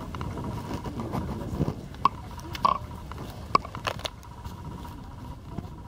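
Footsteps crunching and rustling through dry leaves and brush, with a few sharp snaps about two to four seconds in.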